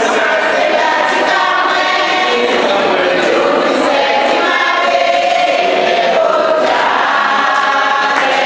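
A church choir of women and men singing together.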